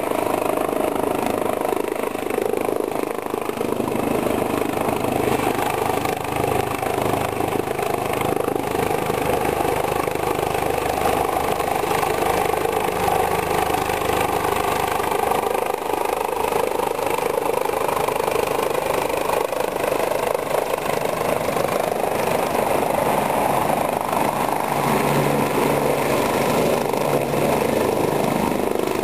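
Helicopter flying in to land, its rotor and turbine engine running steadily and growing louder in the second half as it comes down close.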